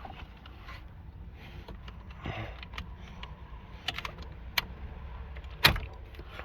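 Plastic dashboard trim and its connectors being handled inside a car: light scraping and rustling, with a few sharp clicks, the loudest about two-thirds of the way through.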